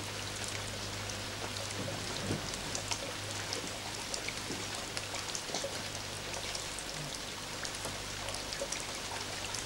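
Steady light rain, with scattered drops pattering, over a low steady hum.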